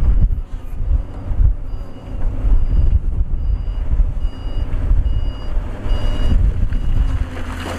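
Reversing alarm of heavy construction machinery beeping at an even pace, about seven beeps, starting about two seconds in and stopping about six seconds in, over the steady rumble of a diesel engine.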